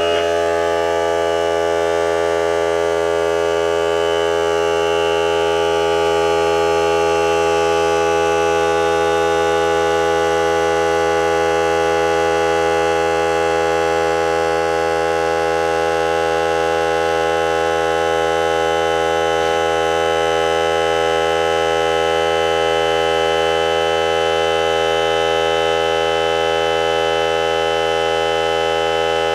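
Ryobi 18V ONE+ cordless air compressor's motor and pump running with a steady, even drone, switched on automatically because tank pressure fell below about 90 psi, refilling the tank from about 80-85 psi toward its 120 psi cut-out.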